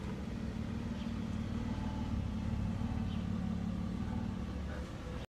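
A car's steady low engine and road rumble, which cuts off suddenly just before the end.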